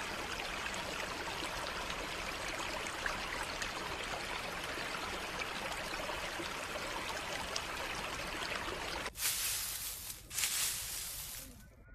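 A small stream flowing and trickling with a steady rush of water. About nine seconds in, the sound switches abruptly to a brighter, louder hiss for a couple of seconds, then fades down near the end.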